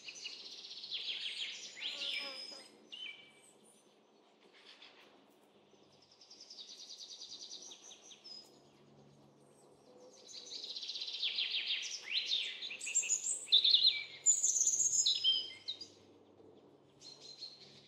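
Small songbirds singing in several bursts of rapid high trills and chirps, loudest in the second half, over a faint outdoor background.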